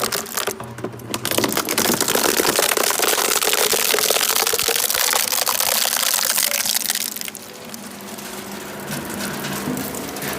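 Waste shredder machine crushing and tearing material: a loud, dense crackling that eases off about seven seconds in, leaving a lighter crackle over the steady hum of the running machine.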